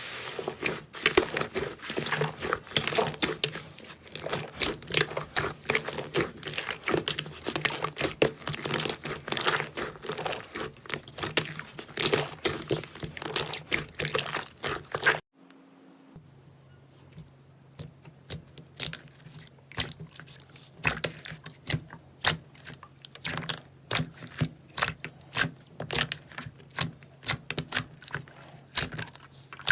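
Slime being squeezed and poked, with dense crackling and popping clicks; a cut about halfway brings a second clip with sparser, separate clicks.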